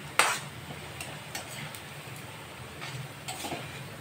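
A metal spoon clanking and scraping against a metal kadhai and a steel plate as fried onions are lifted out. There is one sharp clank just after the start, then lighter clicks and scrapes.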